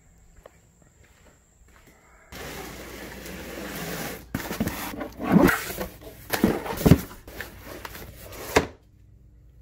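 Cardboard shipping box being handled on a wooden workbench: a steady rushing noise for about two seconds, then scrapes and a series of sharp knocks, which stop suddenly near the end.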